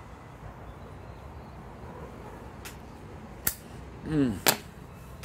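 A briar tobacco pipe being relit with a metal flip-top lighter over a steady low background hiss, then sharp clicks about three and a half and four and a half seconds in, with a short sound dropping in pitch between them.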